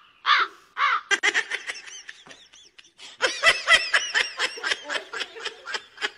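High-pitched laughter in quick giggling bursts: a few longer rising-and-falling laughs at first, then a fast run of short ones about four or five a second from about halfway through, cut off abruptly near the end.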